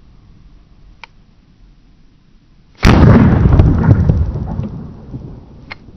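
One loud revolver shot fired with the muzzle pressed against a block of ballistic gelatin, about three seconds in; its report dies away over a second or two. A faint click comes about a second before and another near the end.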